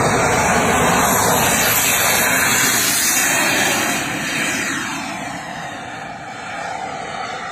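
Radio-controlled model jet running at full power on its takeoff run: a loud, even rushing jet noise. About four seconds in it lifts off, and the sound fades as the jet climbs away.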